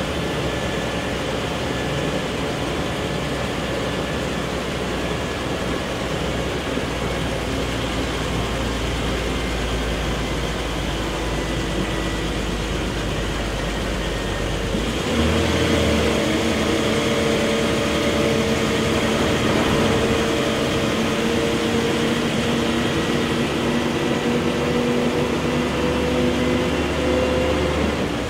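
Inside a moving Scania L113CRB bus: its rear-mounted 11-litre six-cylinder turbo CNG engine runs under the cabin's road noise as a low rumble. About halfway through the engine grows louder and takes on a clear, steady droning tone that holds until near the end.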